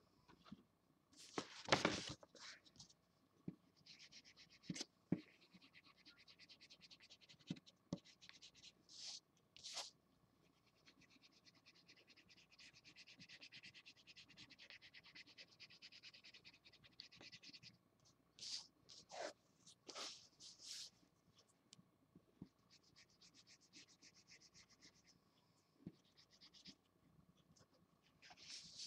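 Felt-tip marker scratching on paper in long runs of quick back-and-forth colouring strokes, faint, with a few louder scrapes between the runs.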